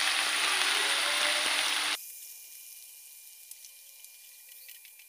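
Stir-fried corn, green tomatoes and fried salted fish sizzling in a wok just after a little water has been added, heating toward a boil. About two seconds in, the sizzle drops suddenly to a much quieter hiss with a few small crackles.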